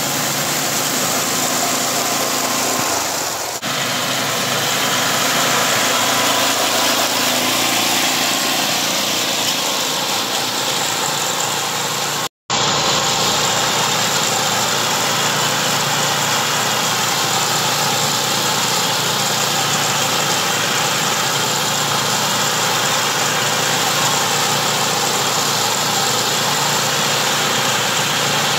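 Small engine of a walk-behind rice reaper running steadily under load as the machine cuts standing rice. The sound drops out for an instant about twelve seconds in.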